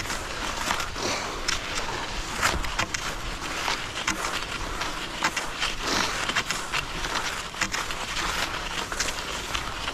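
Cross-country skis scraping and crunching along groomed snow tracks in a steady striding rhythm, about two strokes a second.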